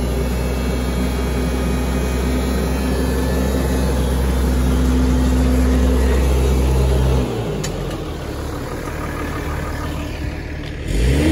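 New Holland T7050 tractor's six-cylinder diesel engine idling with a steady low hum. About seven seconds in the low note drops away and the sound becomes quieter.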